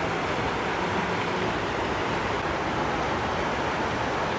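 Steady rushing of flowing floodwater, an even wash of noise that holds at one level throughout.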